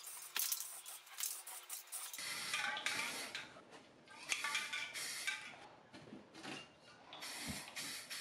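Aerosol can of Rust-Oleum flat black primer, fired through a trigger-grip handle, hissing in repeated short bursts of a second or less with brief gaps between, and small clicks from the trigger.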